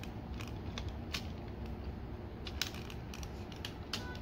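Small plastic clicks and creaks from the joints of a Transformers Masterpiece MP-26 Road Rage figure as its wing parts are turned by hand. Scattered clicks, the sharpest about a second in, midway through and near the end, over a steady low room hum.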